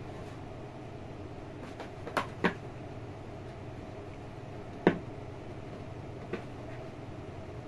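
A few short, sharp knocks and taps of cats batting at and shoving a cardboard box, the loudest about halfway through, over a steady low background hum.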